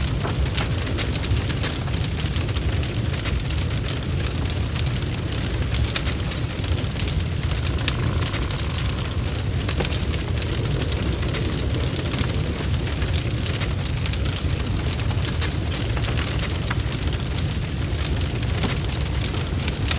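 Fire crackling: many sharp pops and snaps over a steady low rumble of flames.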